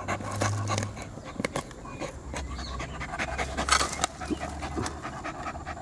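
Poodle panting and sniffing with its nose in a hole it is digging in the dirt, with short irregular scuffs and snuffles.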